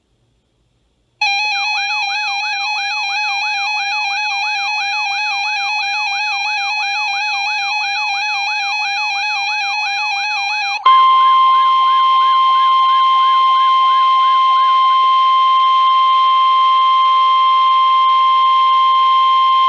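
An electronic warbling alarm tone sweeping rapidly up and down, several times a second. About eleven seconds in it gives way to the steady single-pitch NOAA Weather Radio warning alarm tone over radio hiss, signalling that a warning is about to be read.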